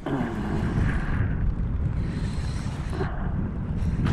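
Wind buffeting the microphone in a steady low rumble, with patches of hiss above it.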